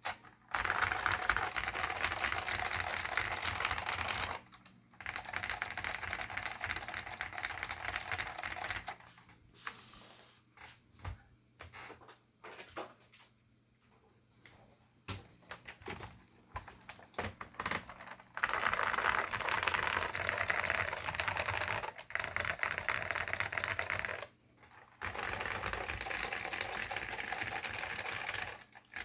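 Dell AT101 mechanical keyboard with Alps SKCM Salmon tactile switches and ABS doubleshot keycaps being typed on: long runs of fast, steady typing, with a stretch of slower, separate keystrokes in the middle.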